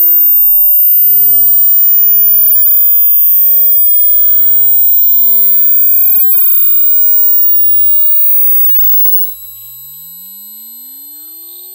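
Speaker burn-in test signal: a pure sine-wave sweep gliding in pitch, with several fainter tones gliding alongside it. It grows quieter from about six seconds in and settles at a lower level.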